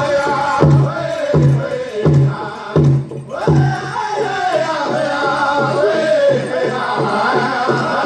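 Powwow drum group singing: a chorus of chanting voices over a big drum struck in a steady beat, about one and a half beats a second. The first five beats are struck hard, then the drumming goes on softer.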